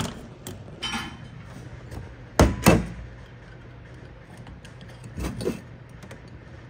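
Steel transmission parts knocking against a steel workbench during teardown. There is a sharp knock at the start, a ringing metallic clink about a second in, two loud clunks a little past two seconds, and a softer pair past five seconds.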